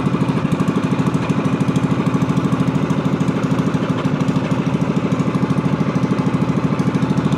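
Small pull-start gasoline boat engine running steadily with an even, rapid beat.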